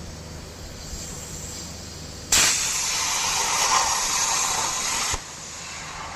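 CNC plasma cutter torch firing: a loud, even hiss that starts abruptly a couple of seconds in, runs about three seconds and cuts off sharply, over a low steady machine hum.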